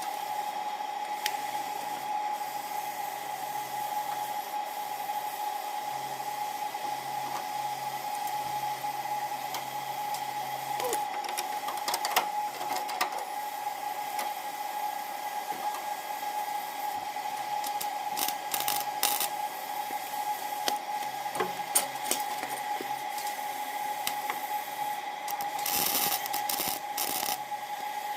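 Small electric power tool cutting sheet metal, its motor running steadily with a constant whine, with scattered light clicks and ticks of metal.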